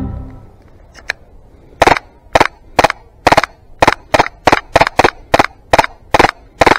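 Airsoft pistol fired in a steady string of single sharp cracks, about a dozen shots at roughly two a second, starting just under two seconds in after a short pause with two faint clicks.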